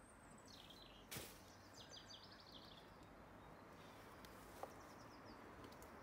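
Near silence with faint small-bird chirps coming in short quick runs of high notes, and one sharp click about a second in.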